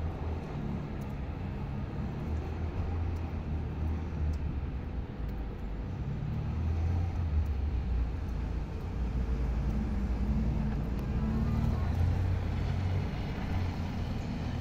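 A motor vehicle engine running: a low, steady rumble that swells for a few seconds midway and then eases, over faint street noise.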